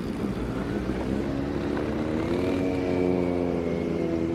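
Kawasaki Z900's inline-four engine running steadily at low speed, its note climbing slightly about two seconds in and then holding.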